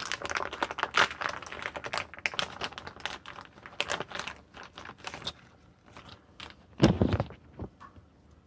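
Rapid small clicks and rattles of hard plastic blind-fitting parts being handled, with a louder knock about seven seconds in.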